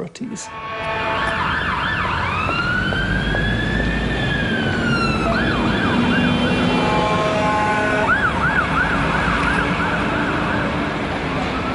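Emergency vehicle siren over traffic noise: a slow wail rising and then falling in pitch, followed by faster warbling sweeps, with a steady tone sounding between them.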